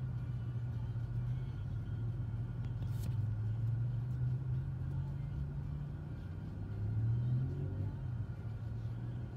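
Car engine idling, heard from inside the cabin as a steady low rumble that swells slightly about seven seconds in. A single short click about three seconds in.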